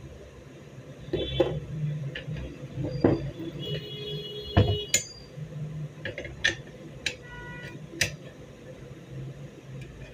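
Metal parts of an MP5-style 30 bore gun being handled and fitted by hand: irregular clicks, knocks and scrapes as the spring, guide rod and bolt go into the receiver. A few of the knocks ring briefly like struck steel, over a steady low hum.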